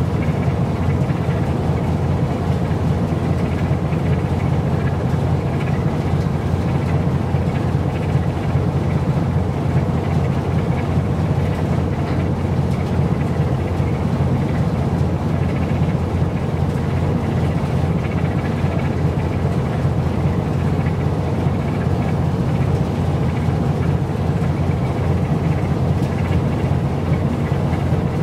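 A steady low engine drone that does not change, with a faint hiss of wind and water over it.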